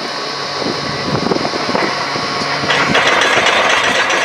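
Truck-mounted borewell drilling rig running steadily as the drill rod is raised out of the hole, a loud mechanical roar with a low hum. About two-thirds of the way in a louder rushing noise joins it.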